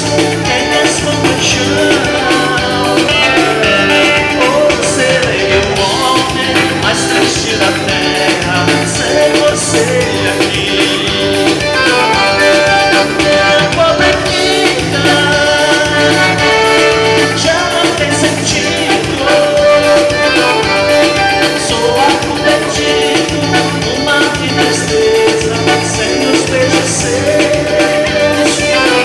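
Live band dance music with a singer, a steady, regular beat and a repeating bass line.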